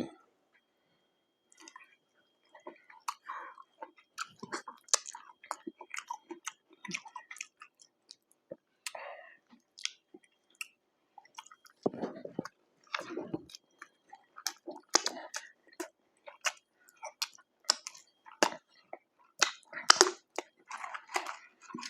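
Close-miked chewing and mouth sounds of eating McDonald's fast food: irregular wet smacks and clicks starting about a second and a half in.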